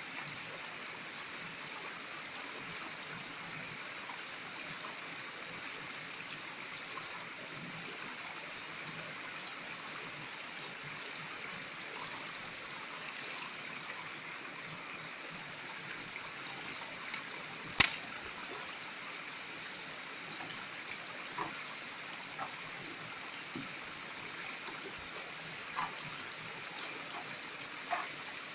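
Shallow stream running over rock, with the water sloshing as a metal gold pan of gravel is swirled and dipped in it to wash the material. Small clicks of gravel and pan come through in the second half, and one sharp knock about two-thirds of the way through is the loudest sound.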